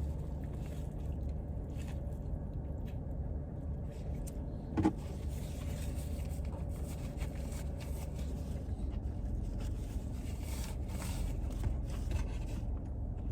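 Steady low hum of a car running, heard from inside the cabin, with a single short knock about five seconds in.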